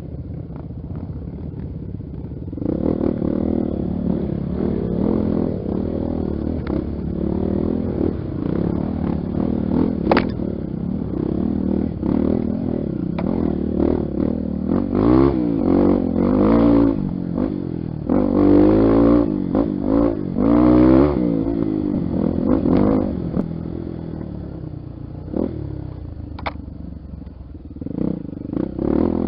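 Honda XR 250 Tornado's single-cylinder four-stroke engine running, picking up about two seconds in and revving up and down repeatedly through the middle, with rattling and two sharp knocks.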